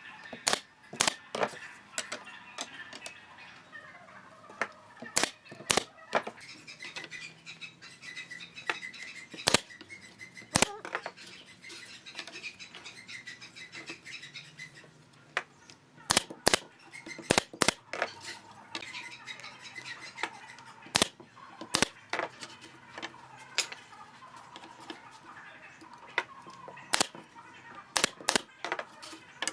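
Pneumatic brad nailer firing nails into pine slats: about twenty sharp single shots at irregular intervals, often two or three in quick succession.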